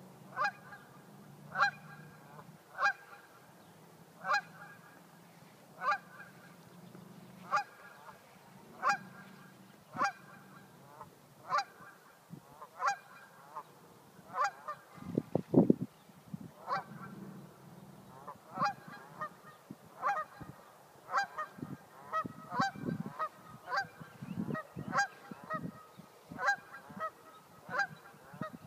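Geese honking over and over in single sharp calls: territorial alarm honks at a dog on the shore. The calls come about every second and a half, then faster in the second half. A brief loud low rumble comes about halfway through.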